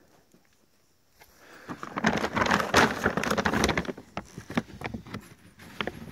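A large sack of dry cat kibble rustling and crackling as it is handled open: dense crinkling with many small clicks, loudest for about two seconds in the middle, then a few scattered crackles.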